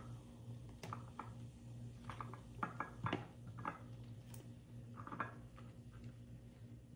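Plastic bottle of cooking oil held upside down and poured into a glass jar: scattered soft clicks and taps, densest in the middle, over a low steady hum.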